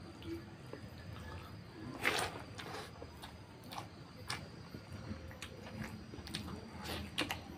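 Fingers mixing and squeezing rice into pork curry on a banana leaf: short wet squishes and sticky clicks, the loudest a brief burst about two seconds in. Wet mouth clicks follow near the end as a handful goes into the mouth.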